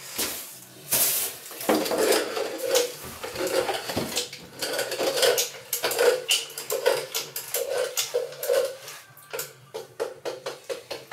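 Sealant gun clicking and creaking as its trigger is pumped over and over, laying dabs of silicone adhesive on a window sill, with knocks from a plastic window board being handled.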